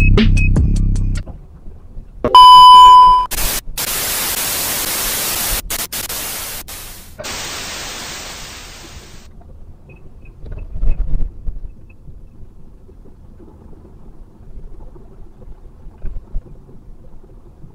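Intro sound effects: a loud steady electronic beep lasting about a second, then a burst of TV-static hiss for about five seconds that thins out and fades away. A faint low road rumble from inside a car cabin follows.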